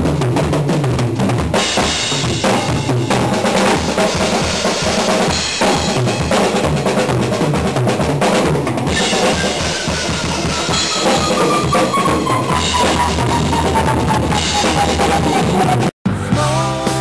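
Drum kit played hard and fast: bass drum, snare and cymbal strokes in a dense rhythm. Over the second half a long tone slides slowly down in pitch. It cuts off about sixteen seconds in and a recorded rock track begins.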